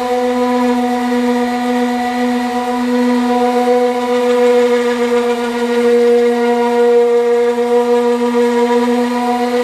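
Power sander running steadily on a repaired body panel: a constant pitched hum with a hiss of abrasive above it.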